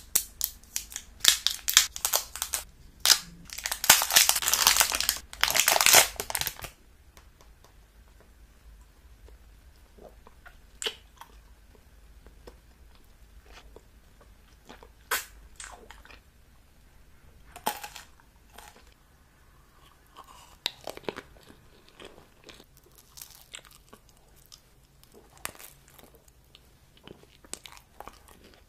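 Close-miked ASMR eating of a blue hard-candy lollipop: a loud, dense run of crinkling and crunching for the first six or seven seconds, then scattered single crunches and mouth clicks.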